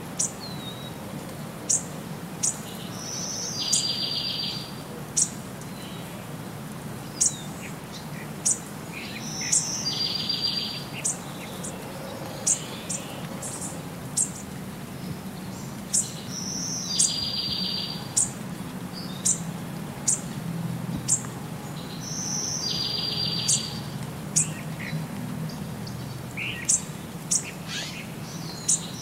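Birdsong ambience: many short, high chirps, and a buzzy trill that repeats about every six and a half seconds, over a steady low hum.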